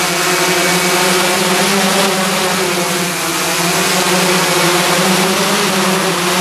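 Giant hexacopter's six electric motors and propellers running in flight: a steady buzzing hum whose pitch wavers slightly as the craft climbs and descends.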